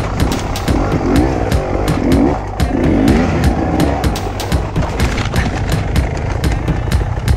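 Beta 300 RR single-cylinder two-stroke enduro engine revving unevenly in short bursts as the bike is worked slowly over branches, with knocks and clatter from the bike. About four seconds in the revving stops rising and falling and the bike goes over onto its side, while the engine keeps running low.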